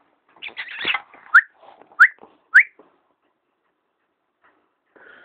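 Three short, sharp whistle-like calls about half a second apart, each rising in pitch: a person calling to a dog to get a response after a seizure. A brief rustle comes just before them.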